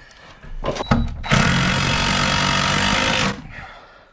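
A power tool runs steadily for about two seconds, with short sharp knocks just before it and one sharp crack near the end.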